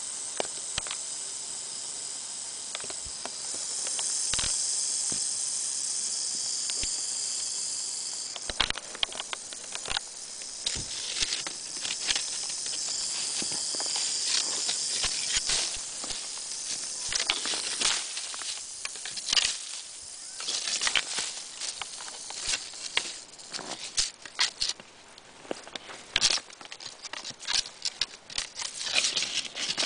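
Rattlesnake buzzing its rattle from under a rock, a steady high hiss-like sound, the snake's defensive warning. It swells about four seconds in, drops away, and returns more faintly in the middle, while short clicks and rustles of brush and dry grass crowd the second half.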